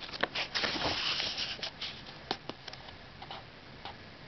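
Pages of a picture book being turned by hand: a papery rustle for about the first second and a half, then a few scattered light ticks and taps.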